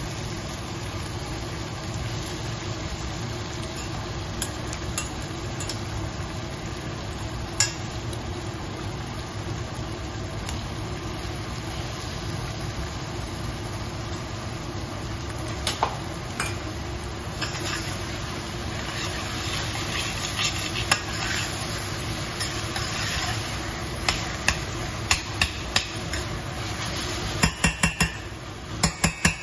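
Onions and tomatoes sizzling gently in oil in a stainless steel saucepan, with scattered sharp clicks of metal tongs against the pan. Near the end a spoon stirs and taps against the pan several times in quick succession.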